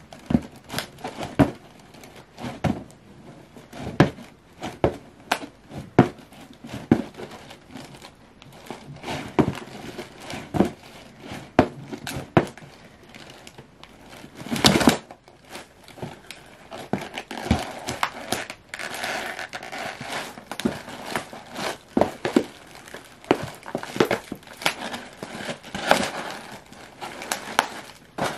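Cardboard Ugg boot box being crushed and flattened: irregular cracks and crunches of buckling cardboard, with crinkling in between. The loudest crunch comes about halfway through, and the crinkling grows denser in the second half.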